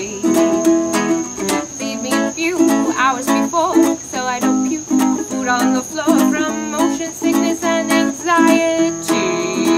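A woman singing with her own strummed ukulele accompaniment, a steady rhythmic strum under the sung melody.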